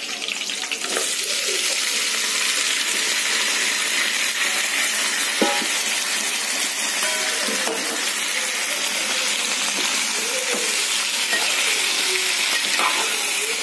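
Boiled chicken pieces sizzling in hot oil in a metal kadai. The sizzle picks up about a second in as the chicken goes into the oil and then holds steady, with a spatula stirring and a few short knocks of the spatula against the pan.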